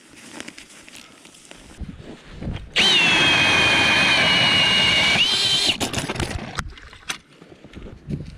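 Power-drill motor running for about three seconds with a steady high whine that rises briefly before it stops, typical of a drill-driven ice auger boring through the ice. Scattered knocks and steps come before and after it.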